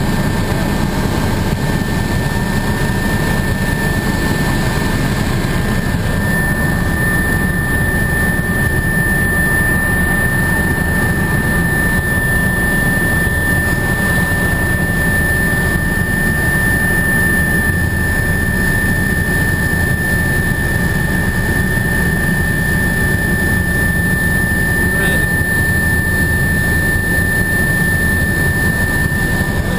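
Helicopter cabin noise in flight: the rotor and engine drone steadily, with a steady high whine running over it.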